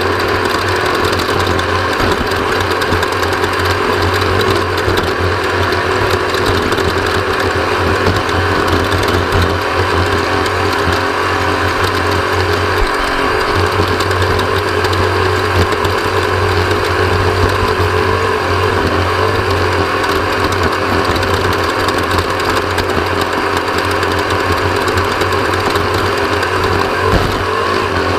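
Engine of an off-road race vehicle running hard at a steady, loud drone, with no let-up or gear change in pitch.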